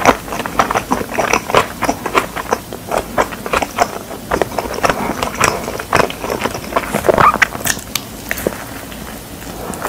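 A person chewing pizza close to a clip-on microphone: a quick, uneven run of crackly clicks and mouth smacks, then a bite into the slice near the end.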